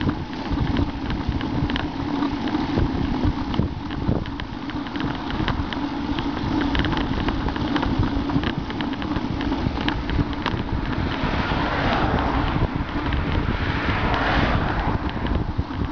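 Wind buffeting the microphone of a handlebar-mounted camera on a moving road bike, over the hum of tyres on asphalt, with frequent small clicks and rattles. There is a louder rush of road noise from about eleven to fifteen seconds in.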